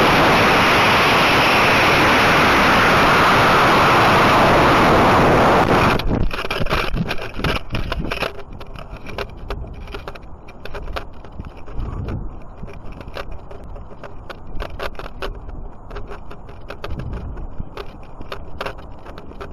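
Estes Omega two-stage model rocket in flight, heard through a camera riding on the rocket: a loud, steady rush of noise that cuts off suddenly about six seconds in. After it come faint wind and scattered clicks and rattles as the rocket comes down under its parachute.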